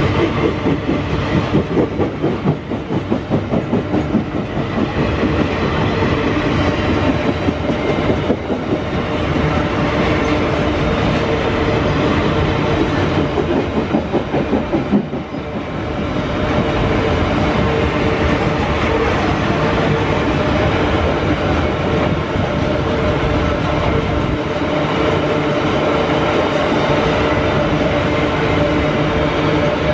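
Freight train of loaded cement tank wagons rolling past close by: steel wheels rumbling and clattering over the rails in a steady, loud run, with an uneven beat in the first half.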